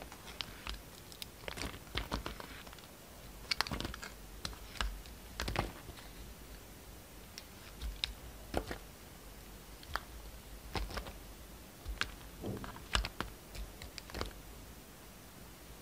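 Utility knife slicing and shaving a bar of soap: an irregular run of sharp clicks and short cutting strokes as the blade bites through and pieces break away.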